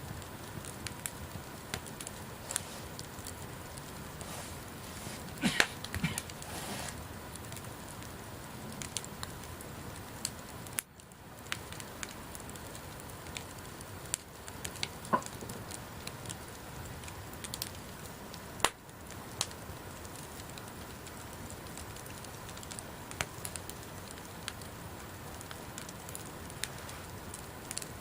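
Wood campfire crackling, with a steady hiss and frequent scattered sharp pops, a cluster of louder pops about six seconds in.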